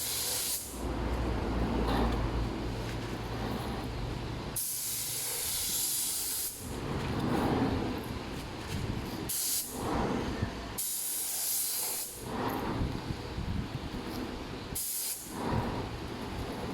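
Short bursts of hissing spray, five or so, each lasting a second or two with pauses between, over a low steady hum.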